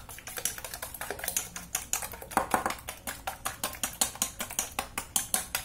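Chopsticks whisking eggs and sugar in a stainless steel bowl by hand, a fast, steady clicking of the sticks against the metal at about seven strokes a second.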